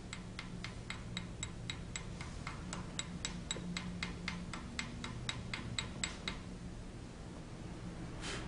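Chipping hammer tapping slag off a fresh weld on a broken stud, quick light metallic taps about four a second that stop about six seconds in.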